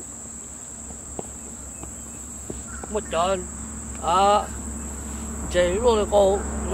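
A steady, high-pitched insect drone runs throughout. Over it come three short stretches of a person's voice, the loudest about four seconds in.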